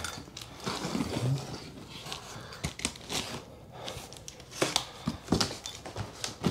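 Box cutter slitting the packing tape along the seam of a large cardboard box, with cardboard scraping and rustling as the flaps are worked loose, and a few sharp knocks in the second half.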